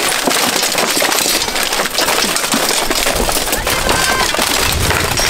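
Dense clatter of steel weapons striking plate armour, helmets and shields in an armoured medieval melee, with brief shouts.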